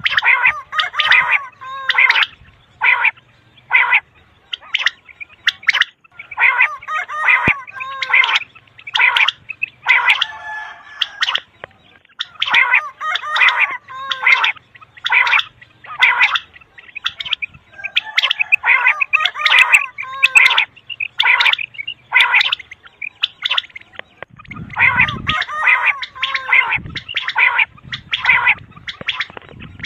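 Common quail calling over and over in quick runs of short chirping notes, with brief pauses between runs. This is a quail call recording of the kind quail hunters play as a lure. A low rumble comes in about 25 seconds in.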